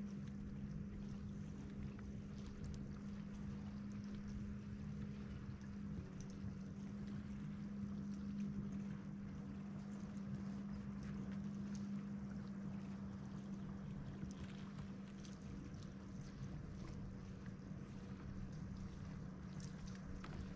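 A steady low hum from a small motor, holding one pitch throughout, over faint wind and water noise.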